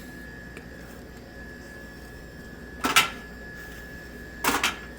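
Drink containers being pushed down and set into a vending machine's tray slots: a sharp knock about three seconds in and a quick double knock near the end. A faint steady high-pitched tone runs underneath.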